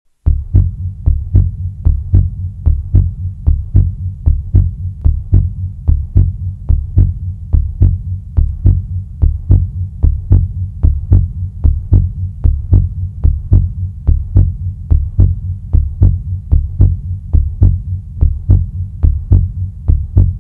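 Heartbeat sound effect: a steady low hum with even, deep thumps about three times a second. It starts abruptly and stops suddenly at the end.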